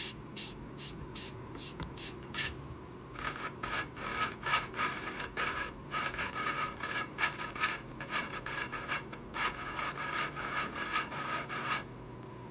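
Briggs & Stratton 12 hp I/C intake valve being lapped against its seat with lapping compound, a gritty scraping in quick back-and-forth strokes, about three a second, that stop near the end. The grinding sounds smooth, the sign that the nicks in the valve face are lapped out and the face is seating.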